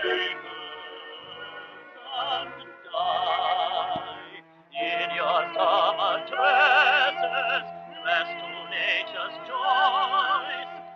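Background film music: a melody held with strong vibrato over accompaniment, dipping briefly about four seconds in, then coming back louder.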